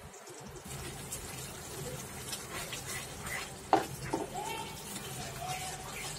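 A spatula stirring thick, simmering masala gravy in a non-stick frying pan, scraping and knocking against the pan over a soft sizzle, with one sharper knock about two-thirds of the way through.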